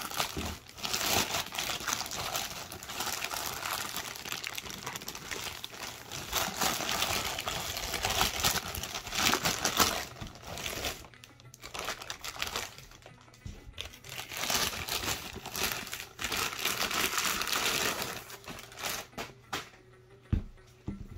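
Thin plastic mailer bag being torn open and crumpled by hand: crackling, crinkling and ripping in repeated bursts that die down near the end. A single short low thump comes just before the end.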